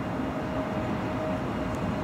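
ICE T electric multiple unit coming slowly in along the platform: a steady rolling rumble with a faint steady hum, growing slightly louder as it approaches.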